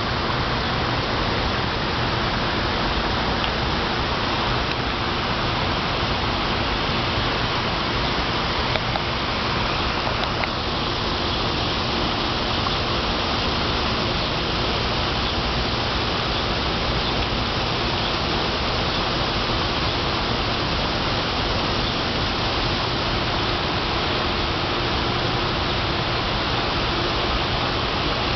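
Park fountain jets splashing into their pool: a steady rush of falling water.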